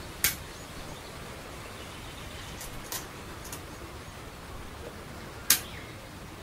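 Go stones clacking down onto a wooden board: a sharp click just after the start as a white stone is played, and a louder one near the end as a black stone is played, with a few fainter clicks between, over a steady hiss.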